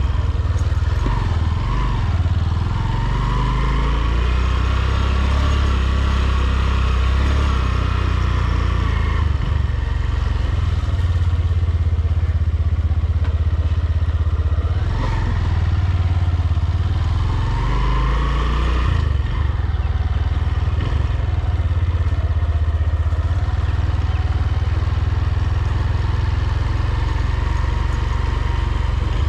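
Motorcycle engine running steadily, rising in pitch twice as it accelerates: once a few seconds in, and again a little before twenty seconds.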